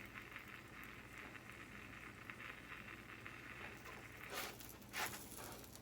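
Quesadillas frying in a pan, a faint steady sizzle and crackle, with two short clatters about four and a half and five seconds in.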